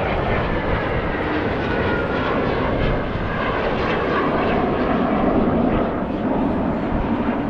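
Fixed-wing aircraft engine noise from a plane flying overhead, a loud steady sound whose faint whine drifts slowly lower in pitch over the first few seconds.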